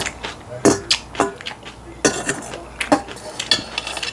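Eating sounds: chewing close to the microphone and a metal spoon clinking and scraping in a stainless steel bowl of bibimbap, as a series of sharp separate clicks with a short scrape about halfway through.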